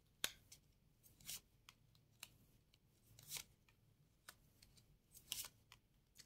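Playing cards handled and laid on the table: a few faint, scattered flicks and soft swishes of card stock, about one every second.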